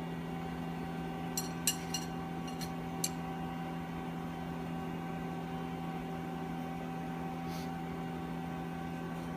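Steady electrical hum in a small room, with a handful of light metallic clicks in the first few seconds as bolts are turned by hand.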